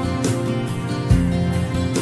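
Instrumental music with plucked guitar notes over sustained tones.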